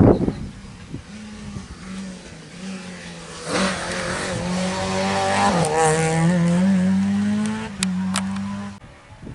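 Mk2 Ford Escort rally car approaching and passing flat out, its engine revving hard. The pitch drops at a gear change about midway, then climbs again. Two sharp cracks come near the end before the sound cuts off abruptly.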